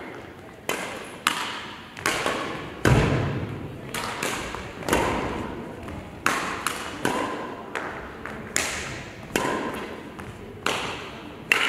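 Badminton rackets striking a shuttlecock in quick rallies: a string of sharp hits at irregular spacing, roughly one every half second to a second, each ringing out briefly in a large hall.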